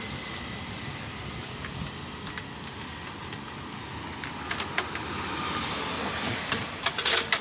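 Steady noise of road traffic passing, with a few sharp clicks near the end.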